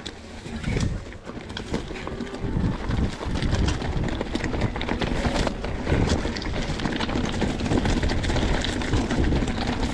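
Wind noise on the microphone of a camera riding along on a mountain bike, with constant rattling and knocks from the bike over rough ground.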